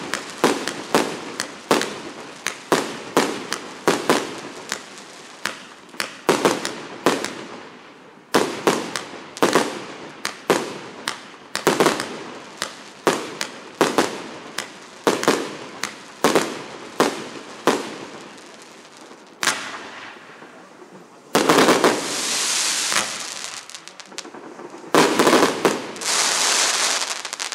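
1.2-inch, 100-shot fireworks cake firing shot after shot, about two sharp bangs a second, each with a short tail. Near the end, after a short lull, the shots give way to two longer spells of dense crackle.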